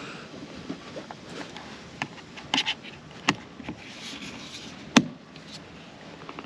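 A few sharp clicks and light knocks of plastic doorbell parts being handled and fitted: a quick double click a little past two and a half seconds in, and the loudest knock about five seconds in.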